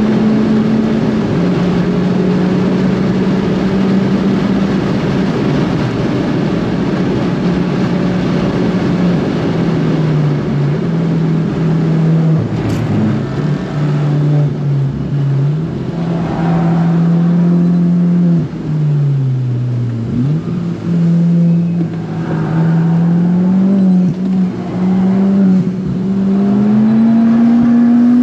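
Big-turbo, 300+ hp Ford Fiesta ST engine driven hard on track, heard from inside the cabin. Its note runs high, dips in pitch twice in the middle as the revs fall, then climbs again. It rises steadily toward the end as the car accelerates through the gear.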